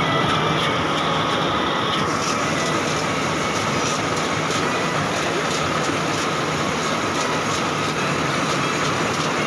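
Farm machinery running steadily at close range: an even engine drone with a constant high whine over it.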